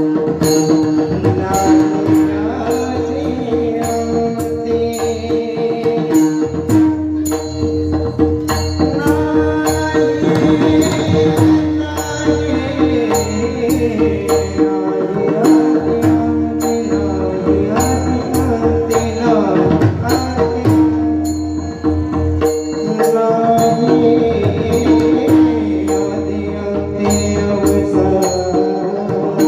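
Warkari kirtan chal: a male voice singing a devotional melody over a steady held drone, with pakhavaj drumming and regular strokes of small hand cymbals keeping the beat.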